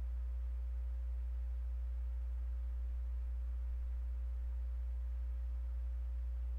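Steady low electrical hum from the recording chain, with faint higher tones above it and no other sound.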